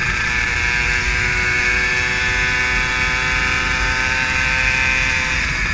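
Tuned two-stroke motorcycle engine screaming at high revs through a performance exhaust, the pitch held steady and easing slightly near the end.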